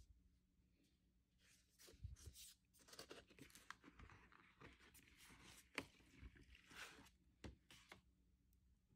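Paper inner sleeve of a vinyl LP rustling and crinkling as it is handled and the record is slid out, with small sharp clicks and scrapes; faint.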